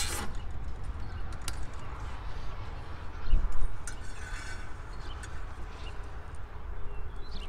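Wind rumbling on the microphone, with small clicks and rustles of hands handling a cable on the back of a solar panel. There is a louder low bump a little over three seconds in.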